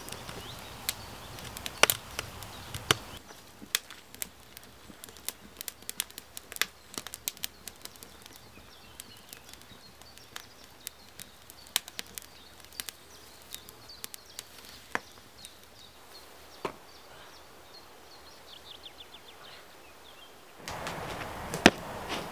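Wood fire crackling in a wood-burning stove: irregular sharp pops and clicks, with faint birdsong behind. Near the end a steady rushing outdoor noise comes up, with one louder click.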